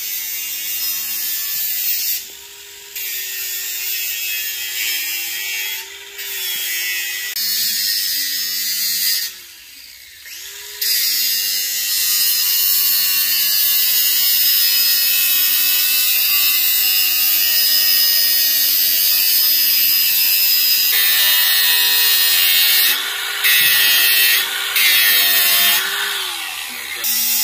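DeWalt 20V cordless angle grinder grinding the edge of a steel sheet: the motor's whine wavers in pitch as the disc bites, over a harsh grinding hiss. It stops briefly twice early on, then grinds harder and louder near the end.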